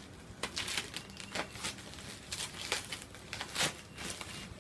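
Packaging being handled and unpacked: a string of short, irregular crinkling and rustling noises.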